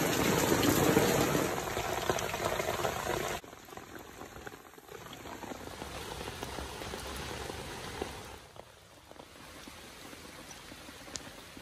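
Rain falling steadily on wet ground, heavy for the first three and a half seconds and then cutting suddenly to a lighter, quieter patter.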